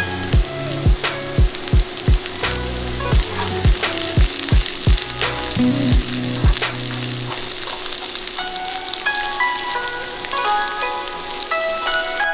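Diced carrots, green beans and onion sizzling in hot oil in a nonstick wok as a spatula stirs them, a steady frying hiss. Background music plays over it, with a steady thumping beat for about the first half, then a light plucked melody.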